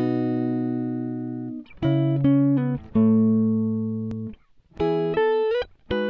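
Background music on guitar: a run of chords, each left to ring out and fade, with a short sliding note about five seconds in.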